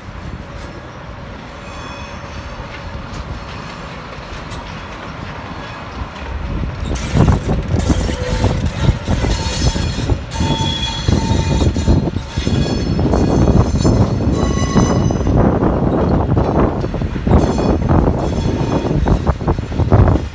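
An SJ Rc6 electric locomotive and its train go by, growing much louder about seven seconds in. The wheels give dense knocks on the track and brief high squeals.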